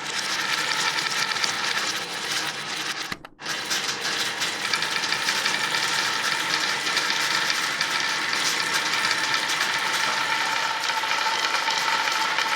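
Marbles rolling and clattering along a toy marble run track, a dense, continuous rattle of small clicks. It breaks off briefly about three seconds in and then carries on.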